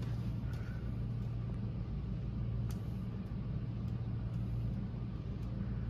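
Steady low hum of room background noise, with a few faint light ticks.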